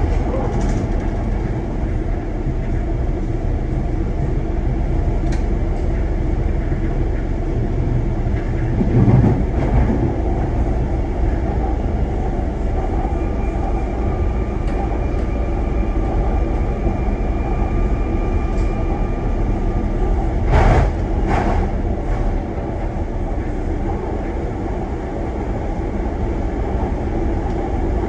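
Docklands Light Railway train running, heard from inside its front car: a steady rumble of wheels on rail. Short knocking clatters come about nine seconds in and again around twenty-one seconds, and a steady high whine runs through the middle.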